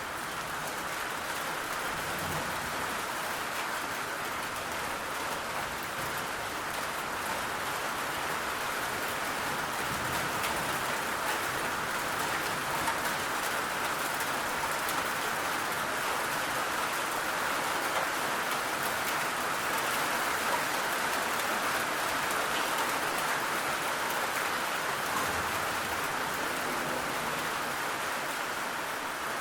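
Heavy rain falling: a steady, even hiss of rain with scattered drop ticks.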